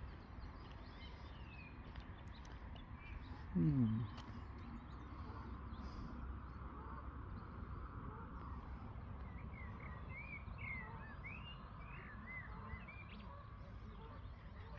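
Small birds chirping over a steady low outdoor rumble. About four seconds in there is one short, falling voiced sound, louder than anything else.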